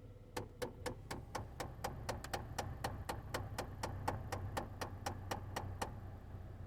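Steady clicking from a Chevy HHR's heating and air-conditioning system, about four sharp clicks a second, stopping near the end, over a low steady hum.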